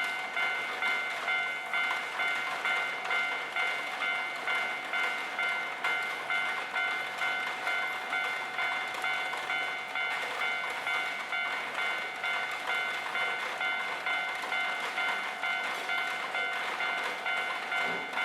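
Japanese railway level-crossing alarm bell ringing in a steady repeating rhythm, about two dings a second, warning that a train is approaching or passing.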